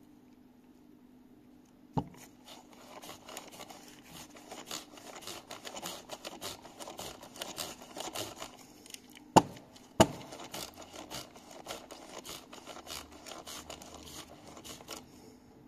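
Steel needle rollers and cage of a large needle roller bearing rattling and clicking in a fast, dense patter as the cage is turned by hand in the outer ring. Three sharp knocks stand out: one about two seconds in and two close together past the middle.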